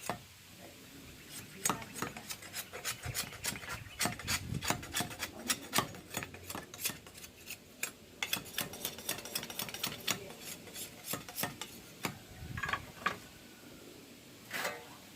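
Bamboo being scraped by hand: a quick, irregular run of short rasping scrapes and clicks, which thins to a few separate strokes near the end.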